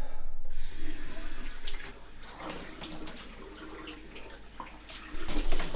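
Water running from a tap into a bathroom sink, with splashing as water is scooped and splashed; louder for the first two seconds, quieter in the middle and louder again near the end.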